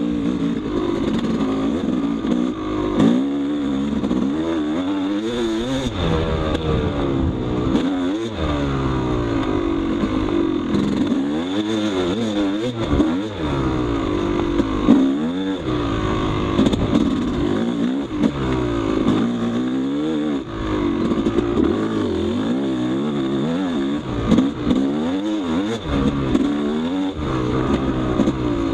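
Yamaha YZ250 two-stroke single-cylinder dirt bike engine under way, its pitch rising and falling every second or two as the throttle opens and closes and the gears change, with a few brief knocks.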